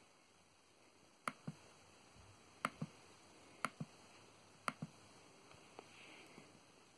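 Four pairs of sharp clicks about a second apart, each pair a button pressed and released on a laptop, as squares of the crossword grid are selected; a few fainter ticks follow near the end.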